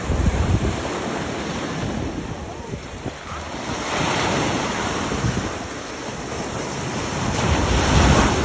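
Small waves breaking and washing up on a sandy beach, the surf swelling about four seconds in and again near the end. Wind buffets the phone's microphone throughout.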